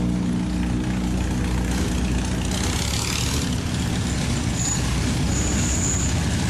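Engines of several vintage open-wheel single-seater race cars running as the cars pass one after another, a steady, loud low rumble with a mechanical hum.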